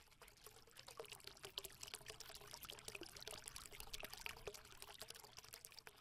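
Faint trickling water, a dense patter of small irregular drips and splashes.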